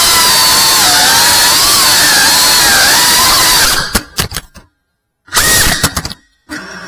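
Cinewhoop FPV quadcopter's motors and propellers whining at high speed, the pitch wavering up and down with throttle. Near the end the sound breaks up and cuts out twice, then returns with a rising whine as the throttle comes back up.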